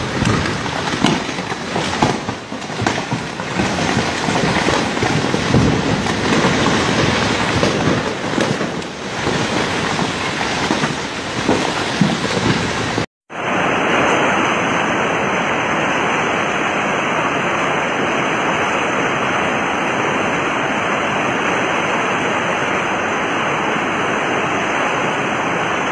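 Loud rushing of floodwater. First a torrent pours down a mountainside with an uneven, surging noise. After a sudden cut about halfway through comes a steady, even rush of muddy water flowing through a street.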